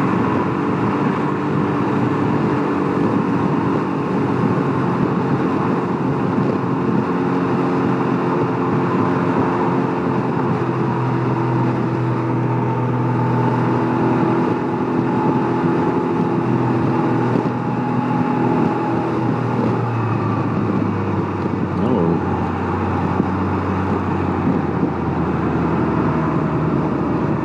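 Can-Am Ryker Rally's three-cylinder engine running under way, with a steady rush of wind and road noise. The engine note drops about three-quarters of the way in as the trike slows.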